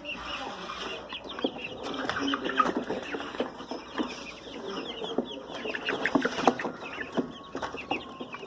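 Golden Sebright bantam hen clucking, amid a busy run of short chirps and clicks.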